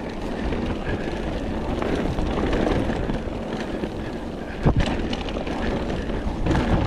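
Mountain bike riding fast down a rough dirt trail: a steady rumble and rattle of tyres and bike over the ground, with one sharp knock about two-thirds of the way through.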